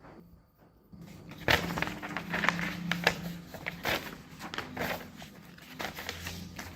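Sheets of office paper being handled and flipped, a run of short, irregular rustles starting about a second and a half in, over a faint low hum.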